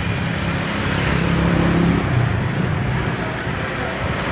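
A motor vehicle engine running steadily: a low, even hum with a rough noise over it.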